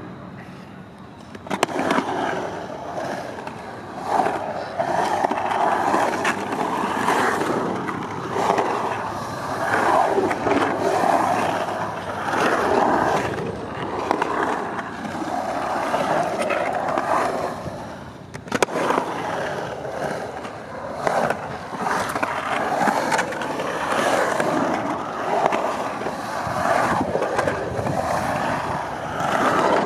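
Skateboard wheels rolling on the concrete of a skatepark bowl. After a short quiet start, a steady rolling rumble begins as the board drops in, then swells and fades as it carves up and down the bowl walls. A single sharp clack comes a little past halfway.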